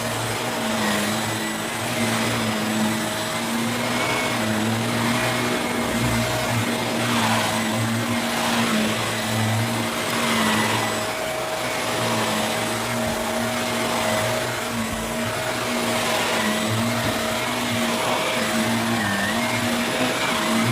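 Vacuum cleaner running continuously, a steady motor hum under the rush of suction, the noise swelling and fading every few seconds.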